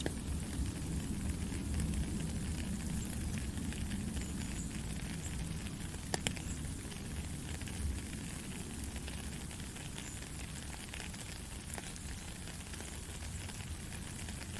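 Heavy rain falling steadily as a dense hiss, with a low rumble underneath that eases off about halfway through and a few sharp drop ticks around the middle.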